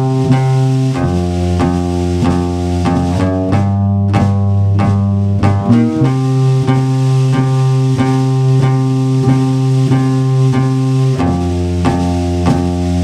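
Rock trio of drum kit, bass guitar and guitar playing a song's instrumental opening: held chords over a steady drum beat, the chord changing every few seconds.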